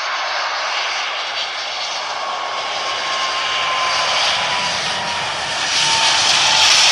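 Jet engines of an Emirates Airbus A380: a steady rushing hiss with a faint, slowly falling whine, growing louder near the end.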